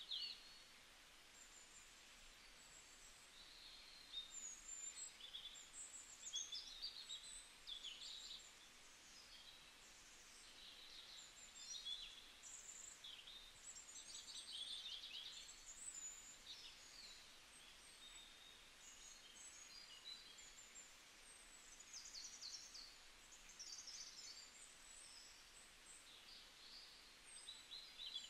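Faint birdsong: many small birds chirping and twittering in quick, scattered phrases over a soft hiss.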